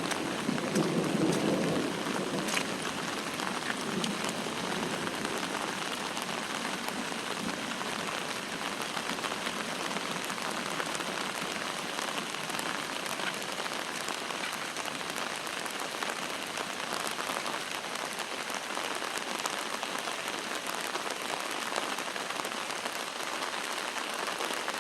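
Steady rain pouring down, an even hiss without breaks.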